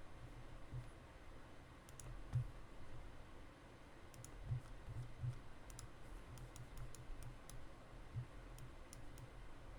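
Faint, irregular clicking of a computer mouse, a dozen or so clicks spread out, with a few soft low thumps, the loudest about two and a half seconds in.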